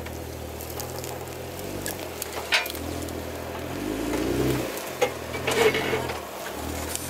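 Jeep Wrangler JK's engine running at low speed off-road, its revs swelling and dipping a few times, with crackling and several sharp knocks, as of tires working over rock and gravel.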